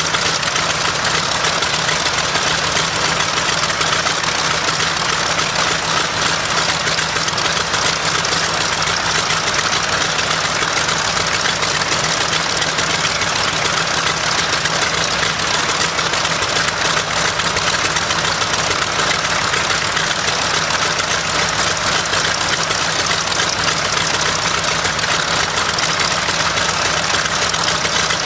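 Nakajima Sakae fourteen-cylinder twin-row radial engine of a Zero fighter running steadily on a ground run, loud and unchanging.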